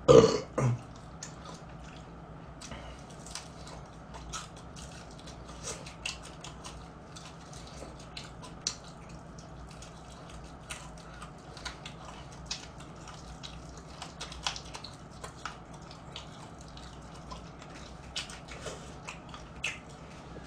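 Close-up eating of crispy old-style Korean whole fried chicken: scattered small crunches, clicks and wet smacks as the meat is torn off the bone and chewed. A short vocal sound comes right at the start.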